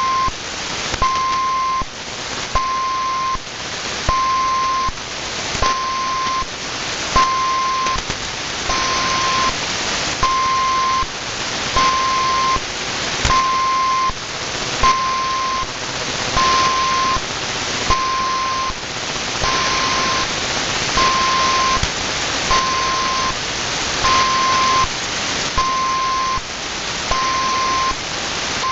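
Unidentified beeping signal received on 4185 kHz shortwave through a WebSDR receiver: a single-pitch beep sounding about once every 1.3 seconds, each beep under a second long, over loud static hiss. The hiss dips at each beep and swells back up between them.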